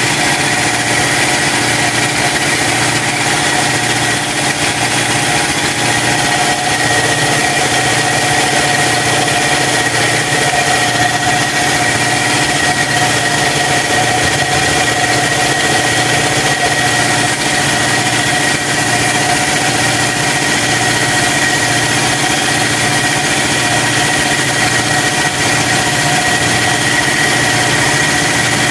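Air compressor running steadily, a continuous motor hum with a low pulsing underneath.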